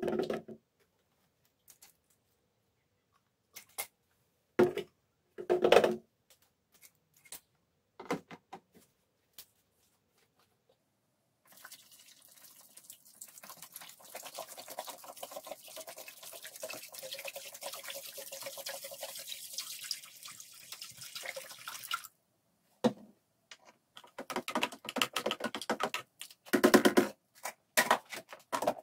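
Liquid poured steadily from a plastic bottle into a plastic tub for about ten seconds. Before and after it, scattered knocks and clatter of bottles and caps set down on a wooden workbench, the loudest near the end.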